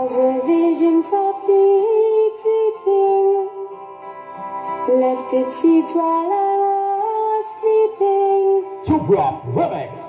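Music played through a stacked sound system of 15-inch speaker cabinets during a sound check: a stepping melody line over held chords, with a louder burst of deep bass and sliding tones about nine seconds in.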